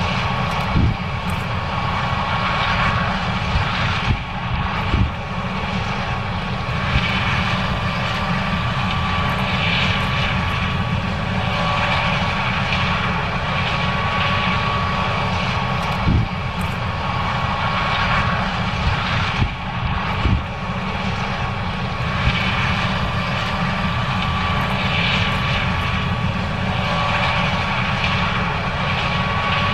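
John Deere S770 combine running while harvesting corn: a steady deep engine drone with a constant high whine, and a few brief knocks.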